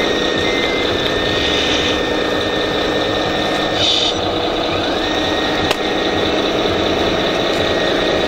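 Radio-controlled model wheel loader and trucks working in sand, with a steady engine-like drone and a thin whine that drops away about three and a half seconds in and rises back about five seconds in. A brief hiss comes near four seconds and a sharp click near six.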